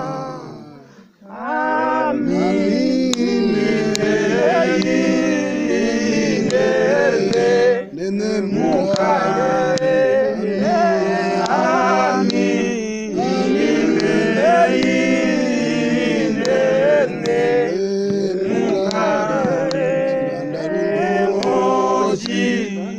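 A group of voices, men among them, singing together without instruments, with a brief break about a second in before the singing picks up again.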